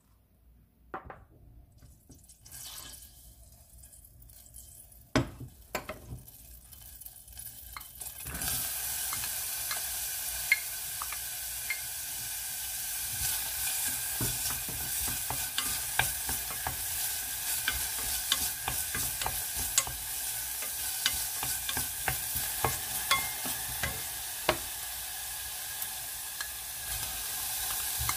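Chopped onion sizzling in butter in a stainless steel saucepan, starting about 8 seconds in, while a wooden spoon stirs it with many small clicks and scrapes against the pan. Before that, a few quiet clicks.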